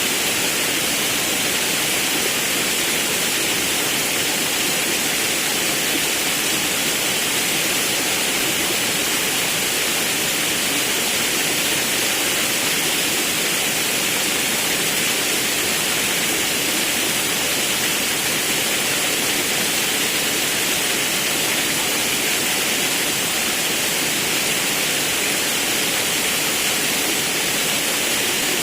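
Forest river and waterfall: a steady, even rush of falling and flowing water.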